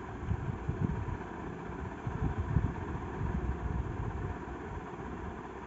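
Low, uneven background rumble that rises and falls in small gusts.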